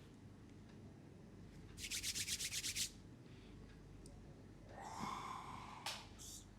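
A quick run of about ten rubbing strokes in about a second, then a longer swishing rub and a sharp click near the end.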